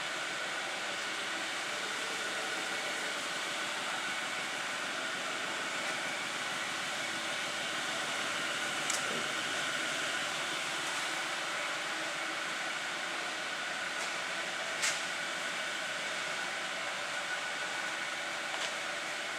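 Steady mechanical whirring noise with a few faint clicks.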